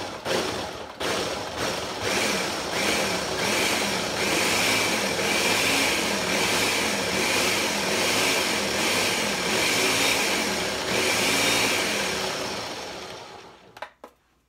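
Ninja countertop blender pulsed a few short times, then run continuously, puréeing roasted tomatoes, serrano peppers, onion and garlic into a hot sauce. The motor winds down about a second before the end, followed by a couple of clicks.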